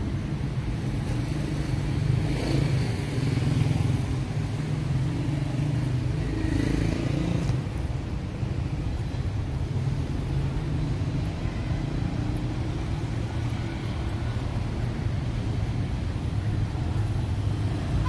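City street traffic: a steady low rumble of road traffic, with vehicles driving past about two seconds in and again about six seconds in.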